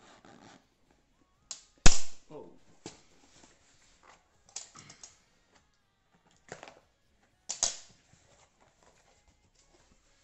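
A parcel being opened by hand: several sharp cracks and rustles of its packaging, the loudest about two seconds in and another near the eight-second mark.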